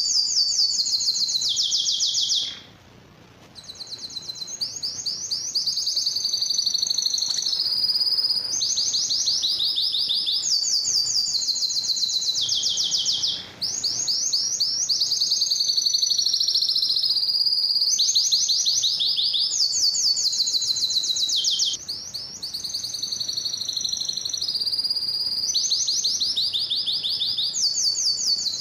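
Male domestic canary singing: a long song of rapid high trills and rolls that switch pitch every second or two, with a brief pause about two and a half seconds in, another about thirteen seconds in, and a third a little after twenty seconds.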